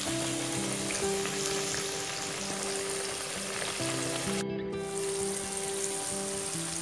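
Tofu and tempeh deep-frying in hot oil: a steady, bubbling sizzle, which cuts out for about half a second about two-thirds of the way through. Soft background music with held notes plays underneath.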